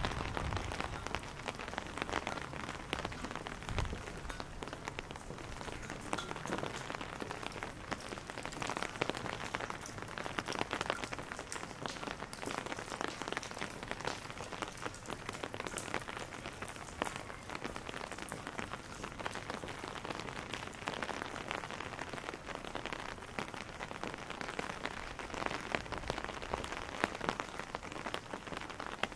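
Steady rain falling on wet cobblestone streets and nearby surfaces, an even patter with many scattered drips and drops.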